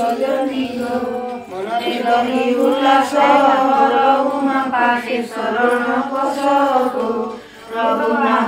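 Hindu devotional hymn chanted to a steady melody, with a short break near the end.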